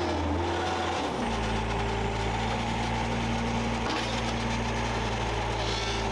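Heavy truck's diesel engine running steadily, stepping up in engine speed about a second in and holding there.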